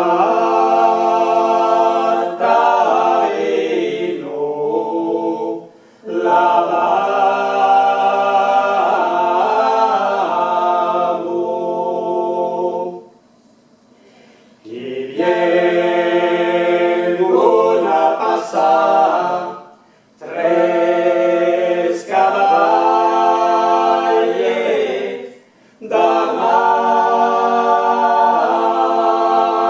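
A mixed vocal quartet, three men and a woman, singing a cappella in close harmony. The song comes in phrases of several seconds each, with short breaths between them and a longer pause about 13 seconds in.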